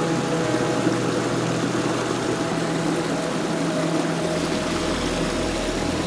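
Small woodland stream rushing steadily over stones and little steps, with a soft held ambient-music chord underneath.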